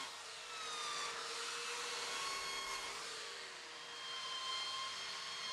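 Belt sander with a 40-grit belt running over a wood slab, grinding inlaid bow tie keys flush. A steady sanding noise with a motor whine that wavers and glides slightly in pitch as the sander moves.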